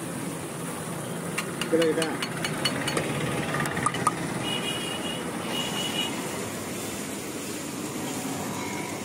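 Busy street-stall ambience: a steady wash of traffic noise and background voices, with a run of light metallic clinks from steel utensils in the first few seconds.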